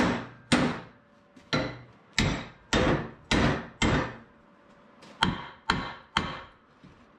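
About ten hammer blows on a rusted arbor press that is seized solid, struck at roughly two a second. There is a short pause after the seventh blow, then three more.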